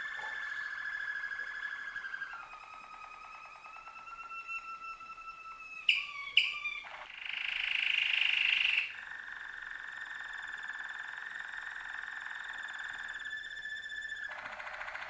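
Canary singing long rolling trills, each held at a steady pitch for several seconds before jumping to a new pitch, with two sharp clicks about six seconds in and a louder, harsher buzzing passage around eight seconds.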